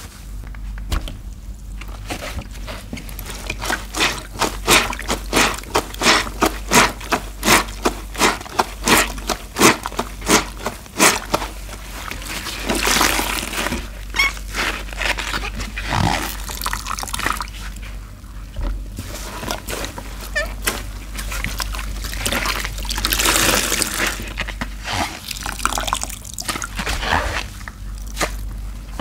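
Stained wet sponges squeezed and kneaded by rubber-gloved hands in soapy water while being rinsed: a run of rhythmic squelches, about two to three a second, for several seconds, then longer stretches of sloshing and water streaming out of the sponges.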